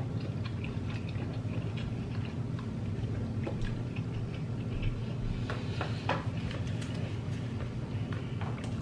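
Eating sounds at a table: scattered small clicks, ticks and smacks as seafood is picked apart by hand and chewed, a few louder clicks about halfway through, over a steady low hum.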